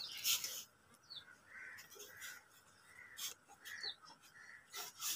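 Metal tongs clicking and scraping against a small frying pan as potato chips are turned in it, with a bird calling several times in the background.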